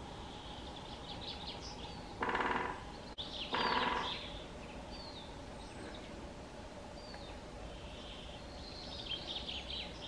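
Great spotted woodpecker drumming: two short, rapid drum rolls about a second apart, the loudest sounds here, while small birds chirp and trill high in the background.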